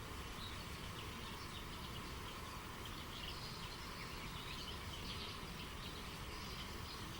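Steady rush of running river water, with small birds chirping in many short, high calls throughout.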